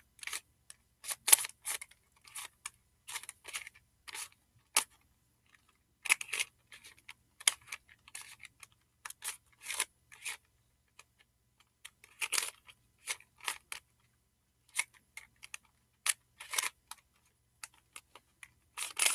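A plastic barrel cube, a 3x3 twisty puzzle, being turned by hand: quick clicks and clacks of its layers in irregular runs, with short pauses between moves.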